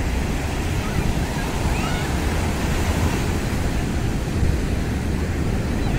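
Ocean surf breaking on a sandy beach: a steady rushing wash of waves, with a low rumble of wind on the microphone.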